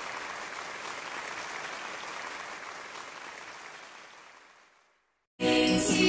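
Applause that fades out over about four seconds, then breaks off into a brief gap; music starts up again near the end.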